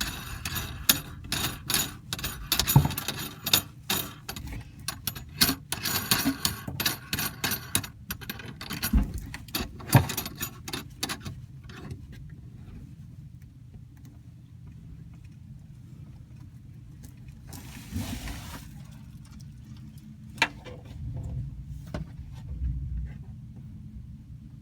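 Small metal parts and tools clinking and rattling in quick, irregular clicks while faucet fittings are handled and worked on. About halfway through this gives way to a few scattered clicks over a steady low hum.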